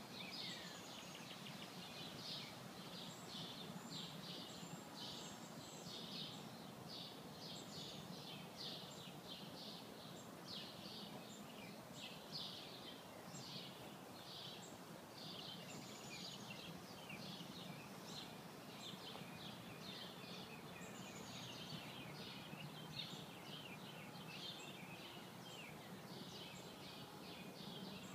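Faint outdoor ambience with birds chirping and singing repeatedly throughout, over a steady low background hum.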